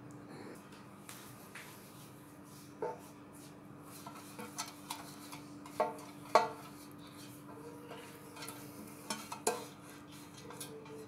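Black metal loaf tin being handled and greased: a handful of sharp metallic knocks with brief ringing, the loudest just after six seconds in, amid light scraping, over a steady low hum.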